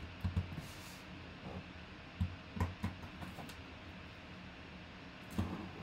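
Folding knife slitting the packing tape along a cardboard box's seam, with several dull knocks as the box is held and shifted.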